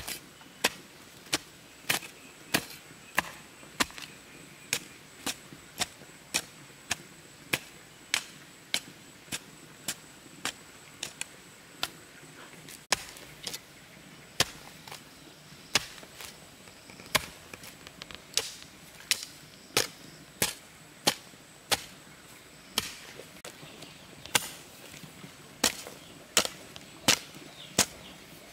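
Steady chopping, a sharp strike about every half second, with a brief lull about halfway through.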